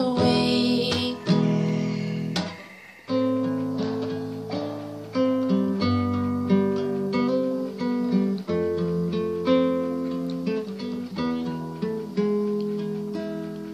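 Instrumental break of a pop song: acoustic guitar chords strummed and picked, each left to ring. The sound drops away briefly about two and a half seconds in before the next chord comes in.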